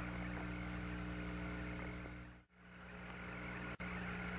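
Steady hum and hiss of an open radio voice channel with no one talking. The signal fades briefly to near nothing about halfway through, then comes back, and cuts out for an instant near the end.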